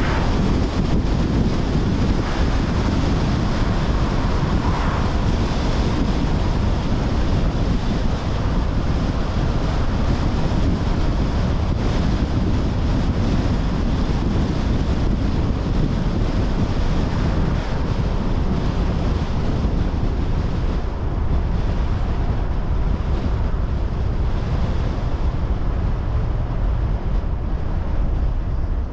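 Wind rushing over a car-mounted camera's microphone while driving, with a steady low rumble of road and tyre noise.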